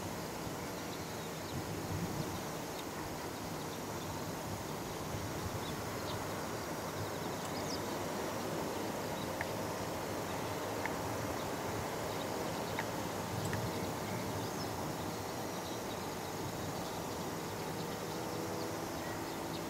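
Distant fighter jets taxiing at low power: a steady jet engine rumble and hiss with a faint wavering whine.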